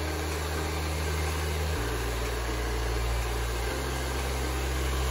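Handheld hair dryer blowing steadily, an even rush of air and motor noise, while blow-drying and combing up a short haircut.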